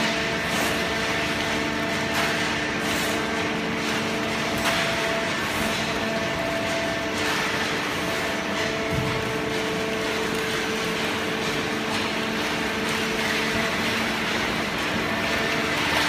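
A 100-ton hydraulic cardboard baler running steadily: the hum of its hydraulic power unit holds several steady tones over an even machine noise, with faint scattered ticks and rustles.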